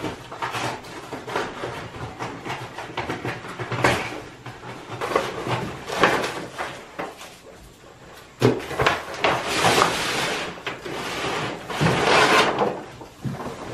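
Brown kraft-paper wrapping being torn and pulled off a rolled leather hide, crinkling and rustling in irregular handfuls, louder and longer in the second half.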